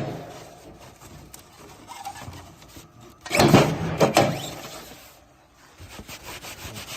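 Veneer patching machine working a stroke: one loud noisy stroke of about a second comes about three and a half seconds in, and a run of short light clicks follows near the end.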